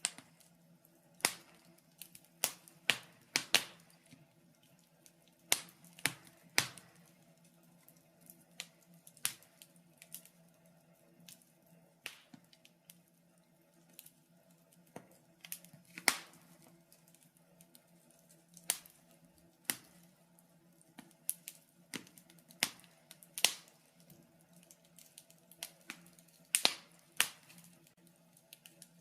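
Wood fire crackling in a fireplace: irregular sharp pops and snaps, some much louder than others.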